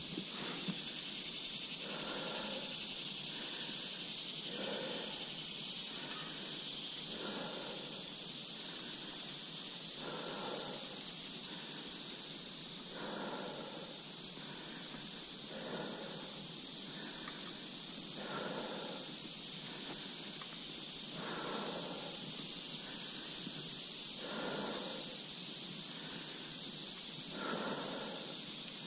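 Steady high-pitched drone of insects, with a mountain bike rolling along a dirt trail underneath and a soft sound repeating about every two to three seconds.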